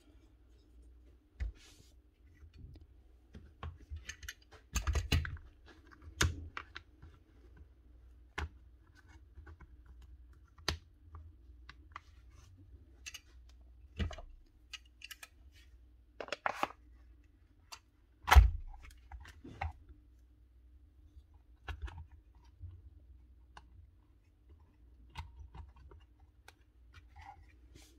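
Scattered clicks and knocks of a Paslode gas nailer and its small parts being handled and worked on at a bench, with one much louder knock about 18 seconds in. A faint steady hum sits underneath.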